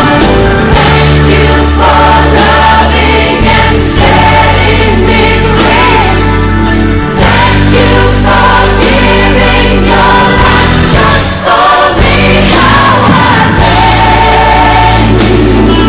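Background music: a song with a choir singing over a steady instrumental accompaniment.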